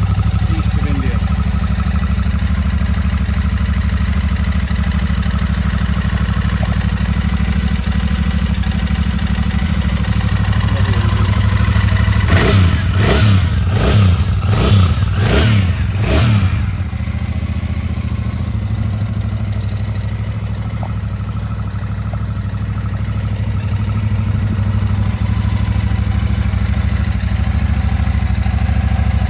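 Royal Enfield Shotgun 650's parallel-twin engine running steadily at idle, with about five quick throttle blips midway that rise and fall in pitch, then settling back to idle.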